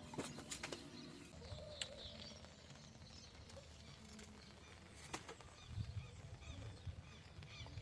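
Quiet outdoor ambience with faint bird chirps and a few sharp clicks.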